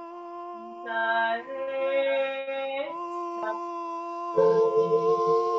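Free vocal improvisation: held, howl-like sung notes, one at about a second in that shifts pitch near three seconds and another near the end, over a steady sustained drone tone.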